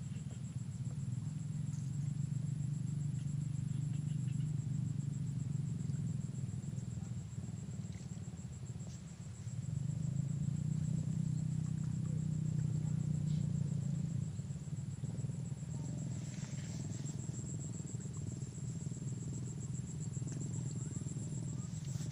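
Insects trilling in one steady high-pitched tone, over a low steady rumble that dips briefly about nine seconds in.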